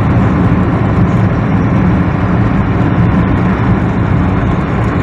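Steady road noise of a car driving at an even speed, heard from inside the cabin: engine and tyres running together with a low hum and no change in speed.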